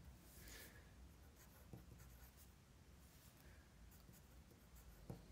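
Faint scratching of a pencil writing capital letters on paper, coming in a few short spells.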